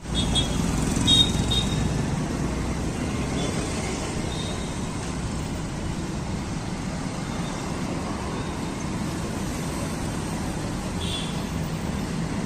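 Steady road traffic noise from passing vehicles, with a few brief high-pitched horn toots a moment in and again near the end.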